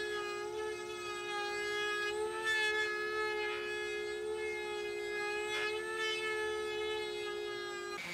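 Router in a router table, with a high, steady whine, shaping the edge of a hardwood end-grain cutting board fed along the fence. The whine wavers slightly a few times and cuts off suddenly at the end.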